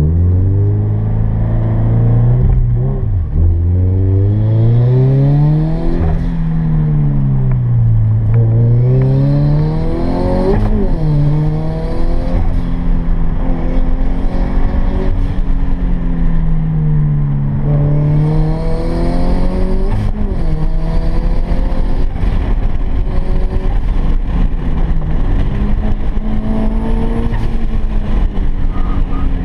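Turbocharged Scion FR-S's 2.0-litre flat-four engine heard from inside the cabin under hard driving, the revs climbing and dropping several times as the car accelerates and lifts off.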